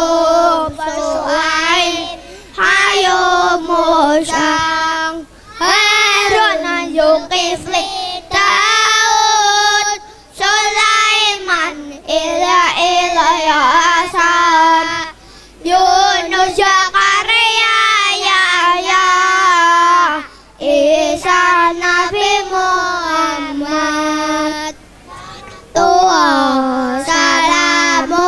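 A group of young boys singing together into microphones, in sung phrases broken by short pauses.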